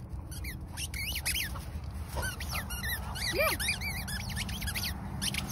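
A squeaky toy ball squeaked over and over in a dog's mouth as it runs: a rapid, irregular series of short high squeaks over a steady low rumble.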